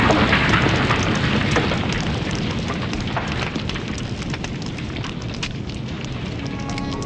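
Sound effect of a large fire burning: a dense crackle of snaps and pops over a steady rushing noise, slowly fading.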